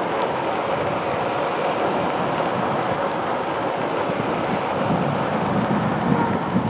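Steady rushing rumble of a Onewheel Pint's tyre rolling over pavement, mixed with wind buffeting the action camera's microphone.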